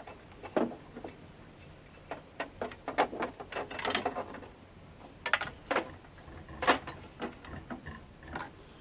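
Irregular sharp clicks and snaps of hand work inside a CRT television: the pink-coated degaussing cable being cut and pulled free.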